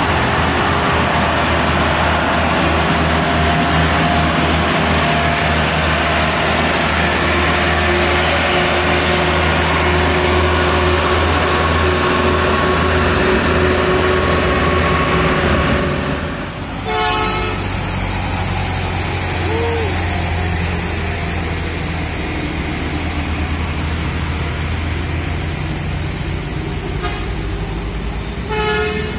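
Diesel truck engine labouring steadily under load as a dump truck tows a stalled, overloaded truck up a climb. About halfway through the sound changes, and short vehicle horn toots follow, with more horn blasts near the end.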